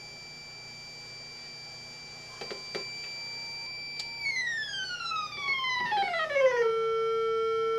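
Electronic tone from a Picaxe 18M2 microcontroller tone generator, played through an audio amplifier and speaker. A steady high beep, then about four seconds in the pitch glides down as the Wii Nunchuk joystick ramps the frequency, settling on a lower, louder steady tone.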